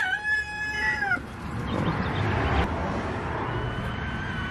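Rooster crowing: a long held note that drops away about a second in. A fainter, thinner held call follows near the end.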